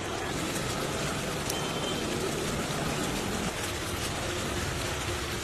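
Chicken curry boiling in a pan, bubbling and sizzling with a steady crackling hiss.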